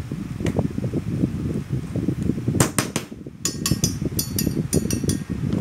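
A hammer tapping steel E-I transformer core laminations into place: a quick run of light, ringing metallic taps starting about two and a half seconds in, over a steady low hum.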